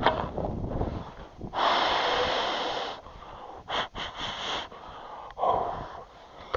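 A person breathing hard: one long loud exhale about a second and a half in, then a few shorter breaths.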